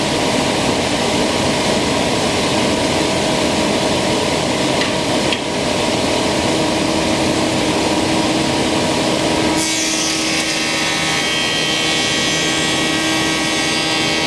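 Thickness planer with fresh Tersa knives milling a black walnut board, a steady loud cutting noise. About ten seconds in the cutting sound drops away and the machine runs on empty with a steady hum.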